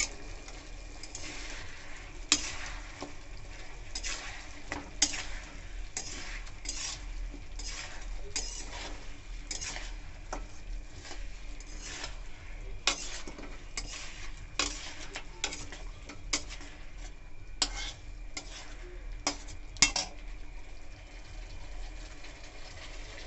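Metal spatula scraping and knocking against a kadhai while turning fried chicken leg pieces in their sauce: irregular clicks and scrapes, one or two a second, over a steady low sizzle.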